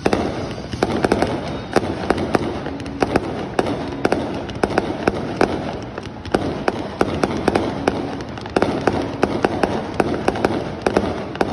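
Aerial fireworks shells bursting and crackling overhead, a dense, continuous run of sharp pops and cracks several times a second.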